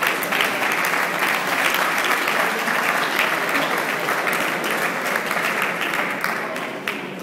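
Audience applauding, many hands clapping together, with the clapping dying away near the end.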